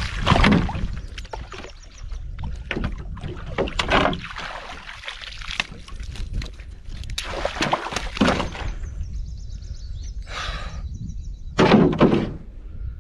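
Water splashing and repeated knocks against a canoe's hull as a big fish thrashes at the boat's side while being fought with rod and landing net, over a steady rumble of wind on the microphone.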